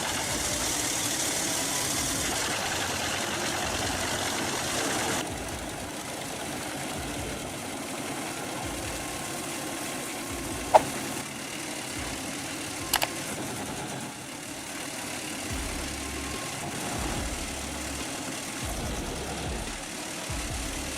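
Heavy machinery engine running steadily, with a hissing high noise that stops about five seconds in, and two sharp knocks about halfway through.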